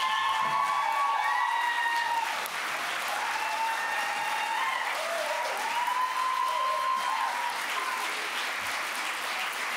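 Audience applauding steadily, with a few long held pitched notes rising above the clapping.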